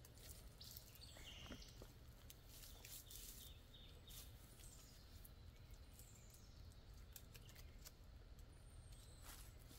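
Near silence: faint woodland ambience with a few short, high bird chirps and a few faint clicks and rustles.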